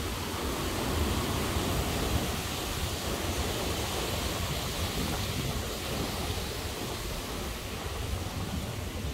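Steady rush of water pouring over a river weir, with wind buffeting the microphone.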